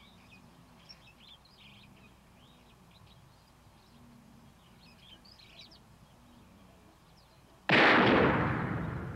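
Faint birds chirping, then about eight seconds in a single loud gunshot that rings out and slowly fades.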